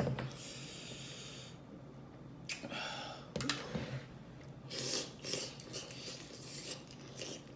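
Close-up mouth sounds of eating. A long airy intake of breath comes first, then a second shorter one, then a string of wet smacking clicks as the food is chewed.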